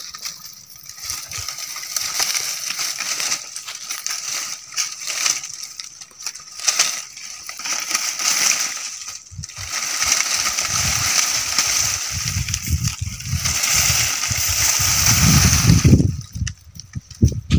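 Dry leaves and dead brush rustling and crackling as a stick is raked and poked through a pile of dead vegetation, in irregular scrapes and crunches.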